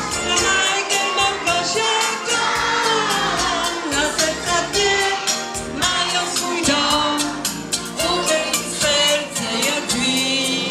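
A song with group singing over a backing track with a steady, quick beat.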